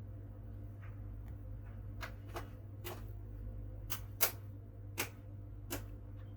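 A handful of sharp, separate clicks, about seven spread over a few seconds, over a steady low hum: clicks of a computer pointer button while working a laptop's sound settings.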